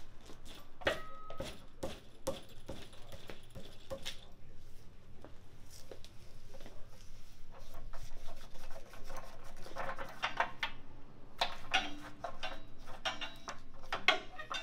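Ratchet and socket clicking and clanking in irregular spurts as a water heater's anode rod is worked loose at its hex head, with denser runs of quick clicks about ten and thirteen seconds in.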